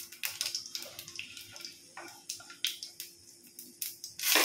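Cumin seeds, a dried red chilli and a bay leaf sizzling in hot mustard oil, with irregular crackles and pops and a louder burst of sizzle near the end.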